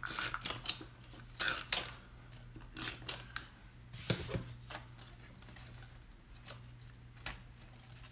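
Cardstock pieces rustling, scraping and tapping on a tabletop as a folded paper box is handled, in short scattered bursts over a faint steady hum.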